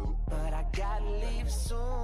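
Background pop music with a steady beat and bass.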